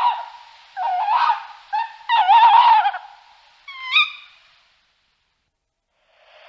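Tawny owl calling: several rough, wavering calls over the first three seconds, then one sharper, higher call about four seconds in.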